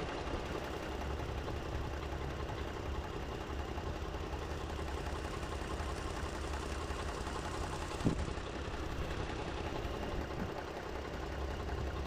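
Toyota 2GR-FKS V6 engine idling steadily, with a single short click about eight seconds in.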